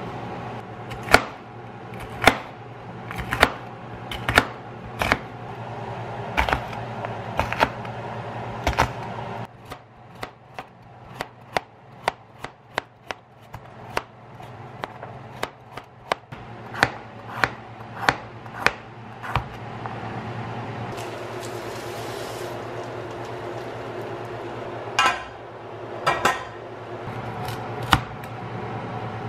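Chef's knife chopping vegetables on a plastic cutting board, a sharp knock with each stroke. The knocks come about once a second at first, then quicker and lighter while a carrot is sliced into rounds, then a few strokes through broccolini near the end, over a steady low hum.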